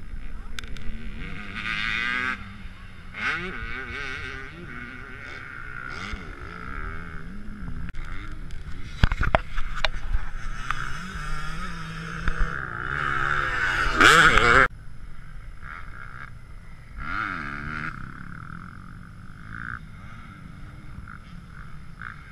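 Motocross dirt bikes on the track, their engines revving up and falling away in waves as the riders accelerate and ease off. The loudest rev climbs about 14 seconds in and cuts off suddenly.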